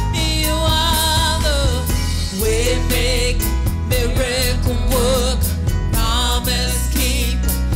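Live gospel worship music: a woman sings a slow melody with a wavering vibrato into a microphone, backed by a band with drums and keyboard.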